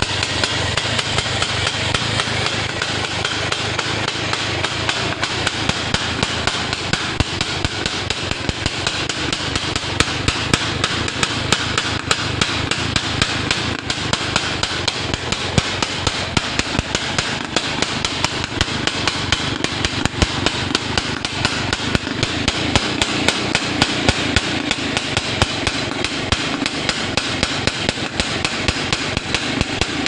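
Suzuki X4 125 motorcycle engine running at idle through an aftermarket DRS exhaust, a rapid, slightly uneven stream of sharp exhaust pulses.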